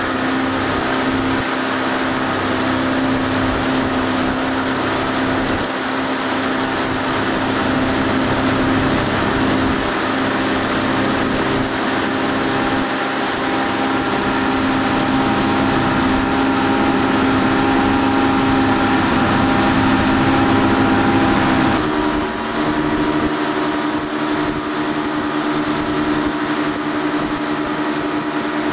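Motorboat engine running steadily under way, its note shifting and dipping briefly about three-quarters of the way through.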